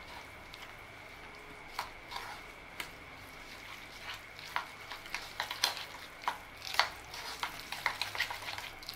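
Plastic spatula stirring and scraping a thick pumpkin, coconut and wheat-flour mixture in a plastic bowl: scattered soft clicks and scrapes that grow quicker and louder from about four seconds in as the flour works into the mash.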